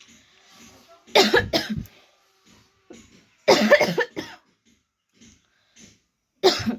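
A woman coughing in three loud fits, about two and a half seconds apart, with quieter gaps between; she has a real cough.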